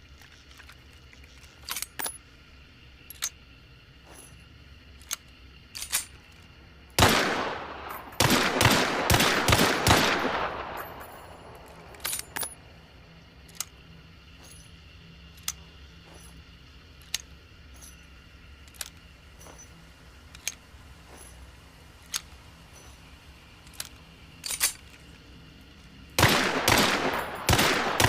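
Pistol gunfire: scattered single sharp shots or clicks, a loud shot about seven seconds in, then a rapid burst of shots that fades out over a couple of seconds. A second rapid burst starts near the end.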